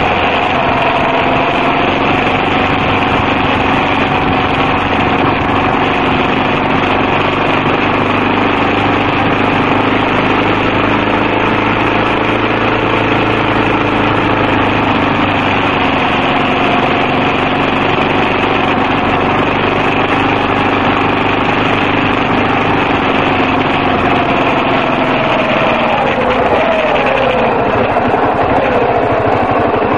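Yamaha XT250's single-cylinder four-stroke engine running steadily while riding, with wind and road noise over it. Near the end the engine note wavers up and down as the speed changes.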